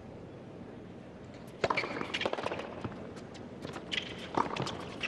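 Tennis rally on a hard court: a low crowd hush, then about one and a half seconds in the first sharp pop of a racquet hitting the ball on the serve, followed by more racquet strikes and ball bounces with short squeaks of tennis shoes on the court.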